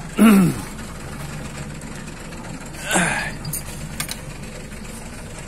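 Boat engine idling steadily. Two brief louder sounds break in: one about a quarter second in that falls in pitch, and another about three seconds in.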